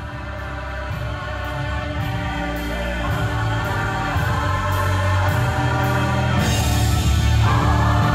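Gospel choir and soloists singing held chords with a live band of keyboards and drums keeping a steady beat, the music growing louder.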